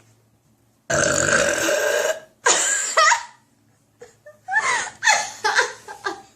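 A girl lets out a long, loud burp about a second in, then a shorter one; near the end come several short vocal bursts.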